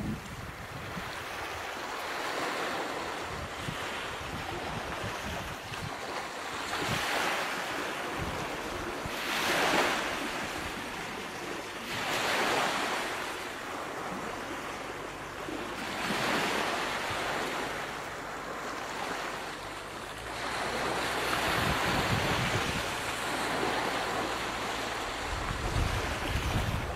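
Ocean surf: waves washing in one after another, each surge swelling and falling away every three to four seconds.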